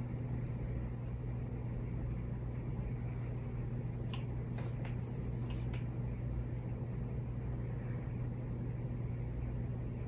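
Steady low background hum, like an appliance or electrical hum, with a few faint soft scratches about halfway through.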